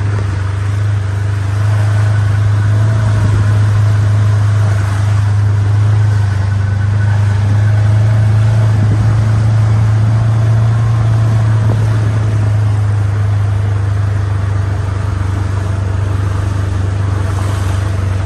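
Vehicle engine running with a steady low drone while driving slowly.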